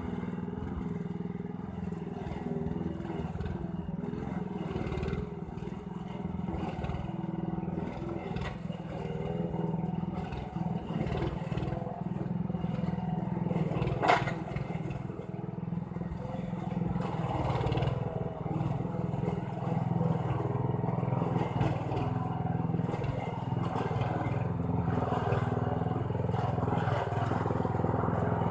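Lawn mower engine running steadily, with light clattering and scraping. A single sharp knock about halfway through, and the running grows a little louder and rougher near the end.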